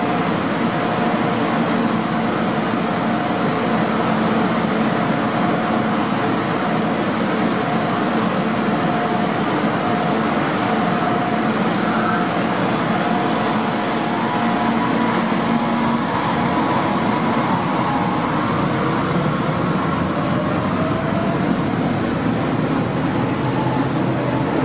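Stuttgart S-Bahn electric multiple units in an underground station: a steady rumble with a broken electric hum from the standing trains. About three-quarters of the way in, a whine rises in pitch as a train starts to pull away.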